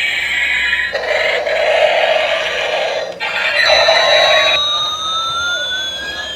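Battery-powered toy helicopter's electronic sound effects from its small speaker: slow siren-like gliding tones, one falling and then one rising from a little past halfway, over hissy bursts that switch on and off abruptly.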